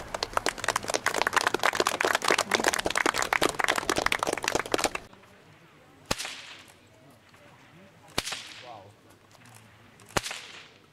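Rapid, irregular clapping from an audience for about five seconds, then a bullwhip cracking three times, about two seconds apart, as it strikes at small peg targets.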